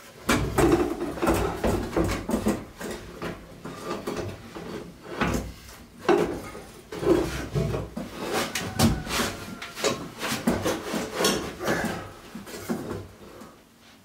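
Diesel heater's metal casing being handled and set into a wooden frame: irregular knocks, clunks and scrapes of metal against wood, dying away near the end.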